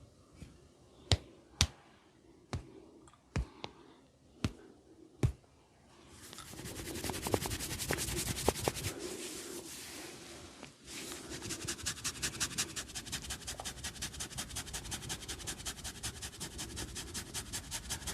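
Head massage by hand: about eight sharp snapping clicks, then hands rubbing and scratching through the hair and scalp. This settles into a fast, even rubbing of about five strokes a second.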